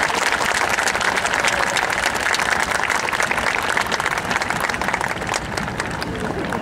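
Large audience applauding, a dense patter of many hands clapping that eases slightly near the end.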